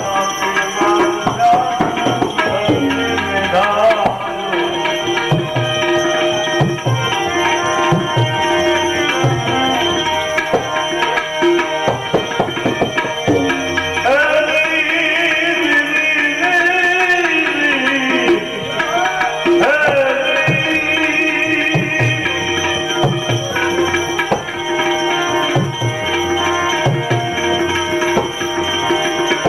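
Devotional bhajan music: tabla keeping a steady rhythm under sustained drone tones, with a gliding melody line coming in around the middle.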